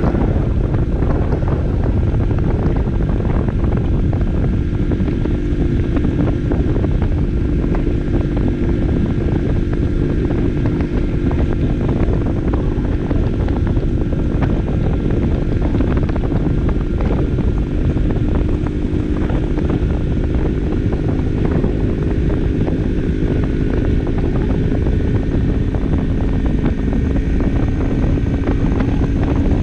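Barton Volcano 50cc moped's small engine running at a steady cruise, its constant hum mixed with heavy wind rumble on the camera microphone.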